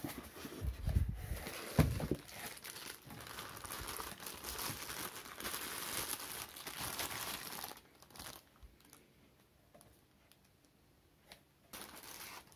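Plastic wrap crinkling as a wrapped juicer filter basket is handled and lifted out of a styrofoam tray, with two dull knocks about one and two seconds in. The rustling stops about eight seconds in, and starts again near the end.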